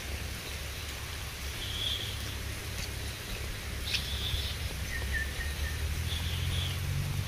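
Outdoor ambience with a steady low rumble of wind on the microphone. Short high chirps from small animals repeat about every two seconds, and a few faint clicks come through.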